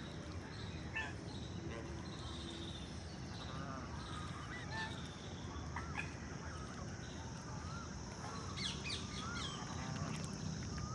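Many birds calling at once: short chirps and whistled notes from several birds, crowding together about three-quarters of the way in, over a steady high hiss and low background noise.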